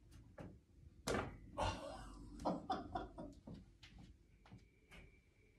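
A series of light knocks and thuds, the loudest about a second in, as a tossed visor strikes and catches on the bar of a home gym's dip station.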